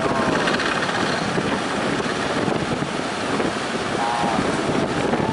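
Heavy surf breaking under a strong wind that buffets the microphone with a steady rushing noise. Faint, short, high cries rise above it near the start and again about four seconds in.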